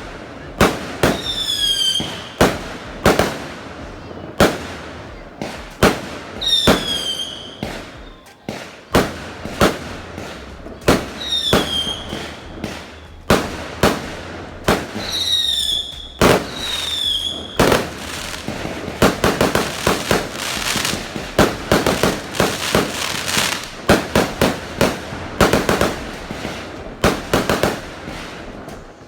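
Fireworks and firecrackers going off: sharp bangs with five short whistles that fall in pitch. About two-thirds of the way through, this turns into a dense run of rapid crackling pops like a string of firecrackers.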